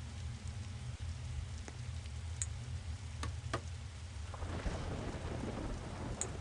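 Steady rain-like noise over a continuous low rumble, with a few sharp ticks; the rain noise grows louder and fuller about four and a half seconds in.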